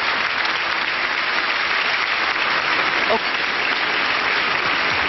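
Audience applauding steadily, a dense continuous clapping that greets the IOC President as he takes the podium.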